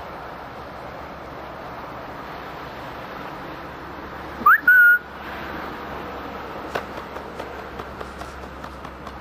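A person whistles once, about halfway through: a quick rising note and then a short held note. The whistle is loud over a steady outdoor hiss, and faint light ticks follow.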